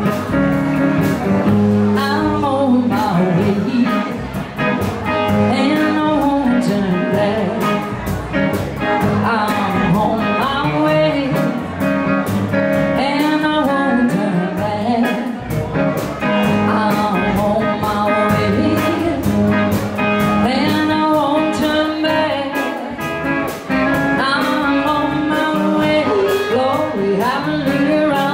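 Live blues band playing: a woman singing lead over electric guitar, acoustic guitar and a steady drum beat.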